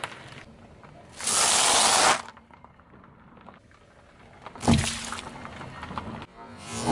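A car tyre crushes a small carton of chocolate milk, which bursts with a sharp pop about two-thirds of the way through. Before it comes a loud hiss lasting about a second.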